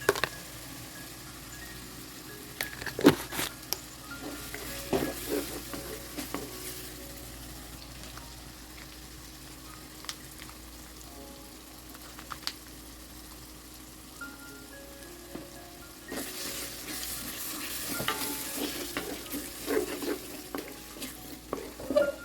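Food sizzling in a hot pot while a spoon stirs it, with scattered knocks and scrapes of the spoon against the pot. The sizzle grows louder about three-quarters of the way through.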